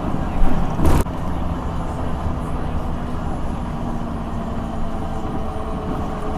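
Cummins ISL 8.9 six-cylinder diesel of a Thomas Saf-T-Liner HDX school bus running steadily, heard as a constant drone inside the passenger cabin while the bus is under way. A short, sharp noise cuts across it about a second in.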